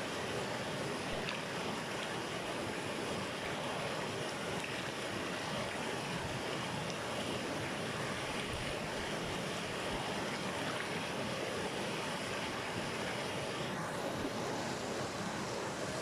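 Shallow, rocky river rushing and splashing over stones in a small rapid, heard close to the water: a steady, even wash of white water.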